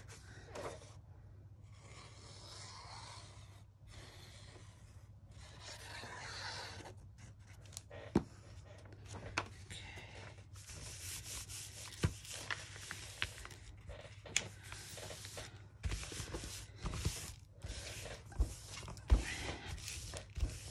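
Paper rustling and rubbing as hands fold, slide and smooth a large paper envelope pocket, with a scatter of light knocks from the handling in the second half.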